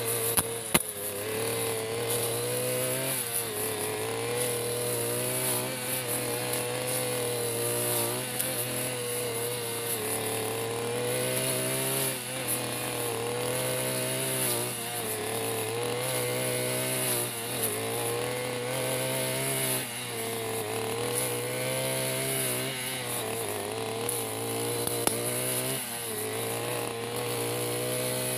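Backpack brush cutter's small engine running at high speed while its sharp metal blade cuts thick carpet grass. The engine note dips and recovers every two to three seconds as the blade is swept through the dense grass and loads it.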